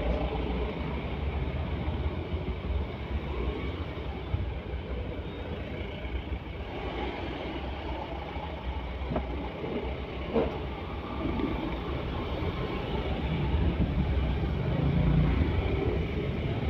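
Steady low rumble of a vehicle on the move, with two brief knocks about nine and ten seconds in.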